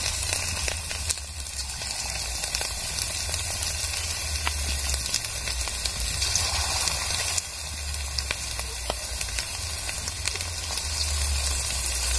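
Marinated, cornflour-coated chicken pieces deep-frying in hot refined oil in an aluminium kadai: a steady sizzle with fine crackles as more pieces are dropped in, over a low rumble underneath.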